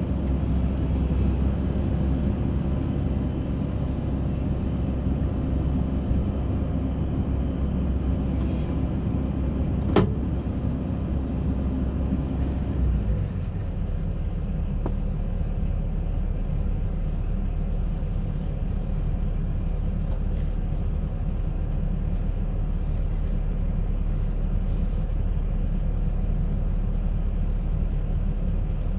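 Concrete mixer running with a steady low machine drone; a sharp knock sounds about ten seconds in, and the low note changes and settles about 13 seconds in.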